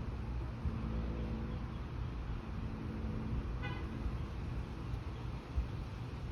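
A motor vehicle running with a steady low rumble, a held low tone for about three seconds, and a brief high-pitched toot a little past the middle.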